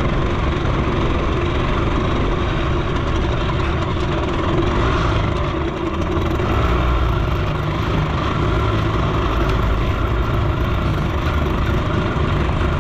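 Suzuki FZ50 moped's small two-stroke engine running steadily while the moped is ridden along.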